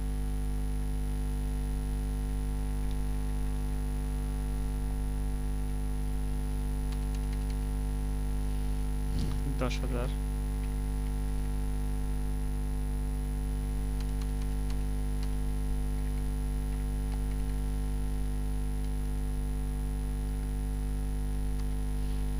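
Steady electrical mains hum with several fixed overtones. About ten seconds in, a brief voice-like sound cuts through it, and a few faint clicks come and go.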